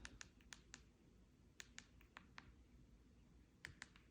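Faint clicks of a Samsung Frame TV replacement remote's buttons being pressed repeatedly, in quick runs of two to four presses.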